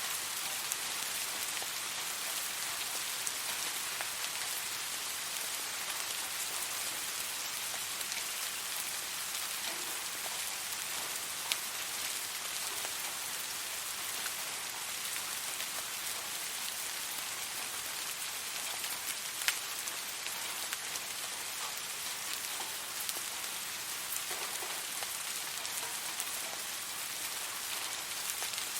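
Steady rain falling on a surface: an even hiss with scattered individual drop ticks, a couple of them slightly louder.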